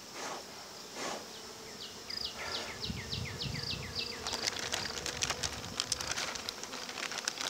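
Honey bees buzzing around an open mating nuc, a steady hum. About two seconds in, a run of quick falling chirps repeats about four times a second for two seconds, then many small clicks and ticks follow.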